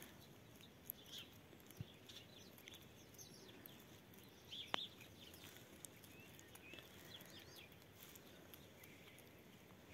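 Very faint birds chirping in short, high calls, with a few soft clicks and one sharper click about halfway through.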